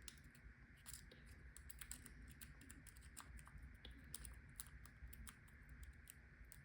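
Faint, irregular small metallic clicks of a hook pick and tension wrench working the pins of a pin-tumbler lock held in the hand.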